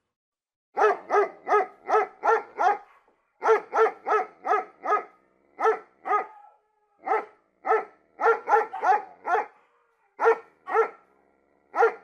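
German Shepherd barking over and over in quick runs of several barks, about three a second, with short pauses between runs.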